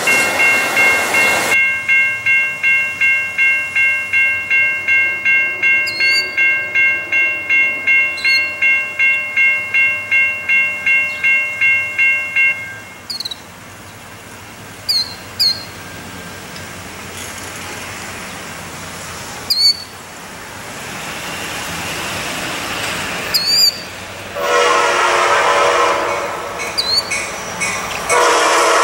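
Railroad grade-crossing bell ringing rapidly, about two and a half strokes a second, over the tail of a passing passenger train; the bell stops about 12 s in. After a quieter stretch with scattered bird chirps, an approaching passenger train sounds its horn in two long blasts near the end.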